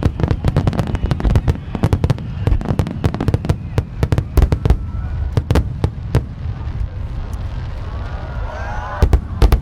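Aerial fireworks display: rapid crackling and banging of many shells bursting for about six seconds, then thinning out, with a few heavy booms near the end.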